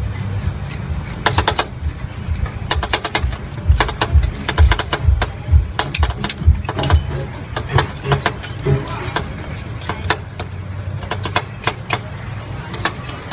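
Metal spatulas clicking and scraping against the frozen steel pan of a fried ice cream roll machine as the ice cream is spread and scraped up into rolls, in many quick uneven strokes, over a steady low hum.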